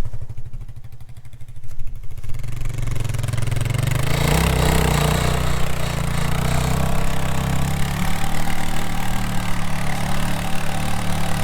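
Quad (ATV) engine idling, its revs rising about two to four seconds in, then running steadily at higher revs.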